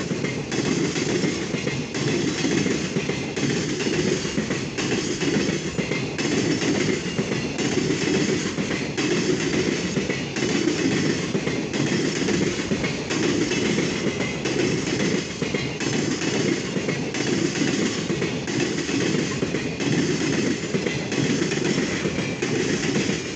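Freight train's container flatcars rolling past at speed: a steady rumble of steel wheels on rail with a repeating clickety-clack of wheelsets over the rail joints.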